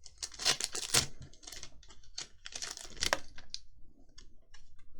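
Pokémon trading cards being handled and flipped through, giving quick clicks and rustles as the cards slide and snap against each other. The sound is busiest for about the first second, then thins to scattered single clicks.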